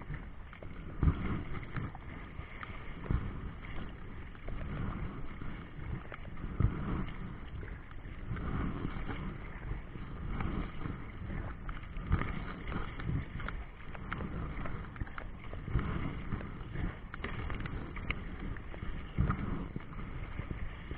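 Wind buffeting the microphone over choppy river water, with irregular knocks and thumps, the loudest about a second in, near three seconds and about six and a half seconds in.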